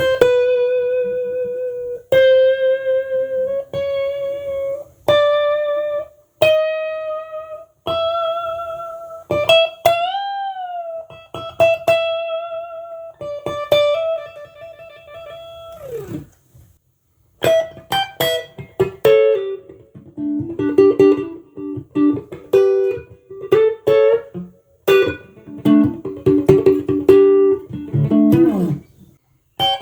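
Tomson Spirit Sounds Stratocaster-style electric guitar played solo: a slow melody of held single notes with vibrato and a string bend up about ten seconds in. After a brief pause about halfway, quicker phrases follow on lower notes, ending with a falling run.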